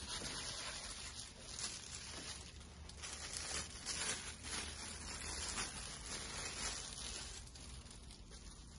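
Clear plastic wrap crinkling and tearing as it is pulled off a spatula by hand, in many quick irregular crackles that die down near the end.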